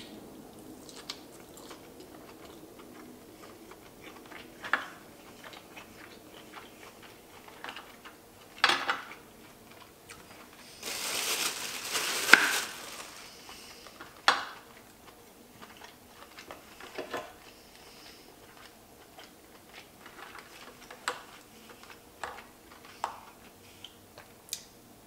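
Person eating lobster: quiet chewing and the handling of lobster shell, with scattered small clicks and taps. About halfway through, a louder noisy stretch lasts a couple of seconds.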